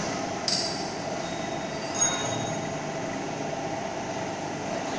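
Gear-driven welding positioners running as their tables tilt, the motors and gearboxes making a steady mechanical drone. A sharp click comes about half a second in and another about two seconds in.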